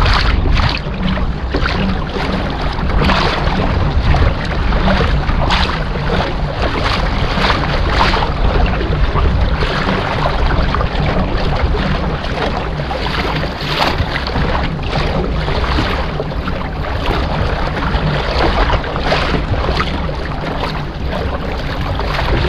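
Wind rumbling and buffeting the microphone, with water splashing and lapping around a kayak on the sea.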